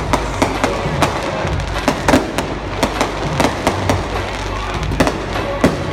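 Aerial fireworks going off: a rapid, irregular string of sharp bangs and crackles, several a second.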